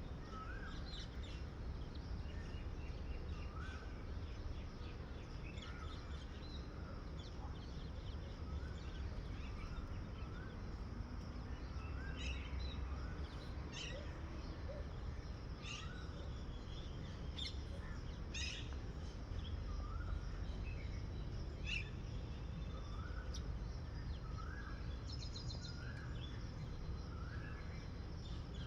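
Outdoor ambience of birds calling: a short hooked note repeats every second or two, with scattered sharp high chirps and a rapid high trill near the end. A steady low rumble runs underneath.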